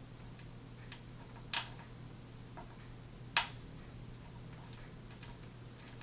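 Light clicks and taps of a small screwdriver and screws on a laptop's screen frame as the screws are driven in, two clicks louder than the rest.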